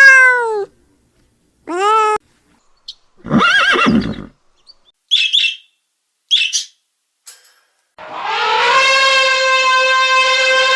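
A string of separate animal calls cut one after another: a short cry that rises and falls, a second short cry, a longer wavering call, two brief high squeaks, then one long held call near the end.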